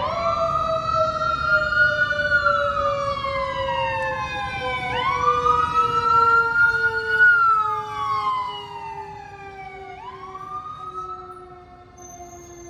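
Fire engine siren wailing: three quick rises, each sliding slowly back down, about five seconds apart, over a lower tone that slowly drops in pitch throughout. It grows fainter over the last few seconds.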